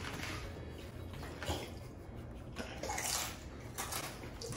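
Wet eating sounds: pani puri shells filled with spiced water being crunched, chewed and slurped, in a few short noisy bursts.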